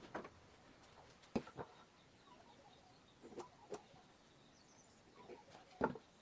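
A handful of short, sharp knocks and clicks at irregular intervals, the loudest near the end.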